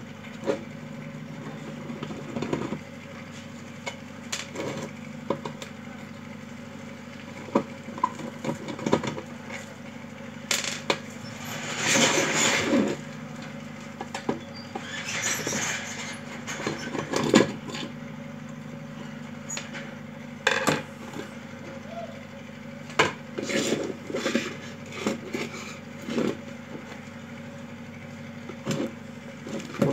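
A screwdriver prying the plastic body off an electric iron: scattered clicks and knocks of plastic, with a few louder scraping bursts about midway. A steady low hum runs underneath.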